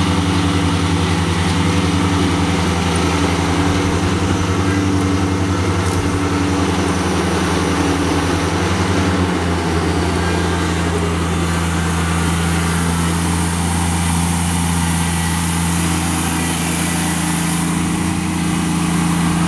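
Kubota BX2230 compact tractor's three-cylinder diesel engine running steadily, its note shifting slightly about halfway through.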